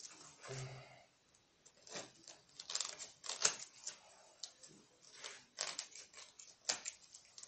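Scissors cutting through a plaster cast: irregular crunching snips in short runs, the blades struggling with the hard plaster.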